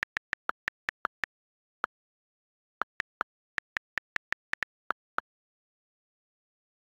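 iPad on-screen keyboard key clicks, about twenty quick taps at several a second, in two runs with a short pause between them. The clicks stop about five seconds in.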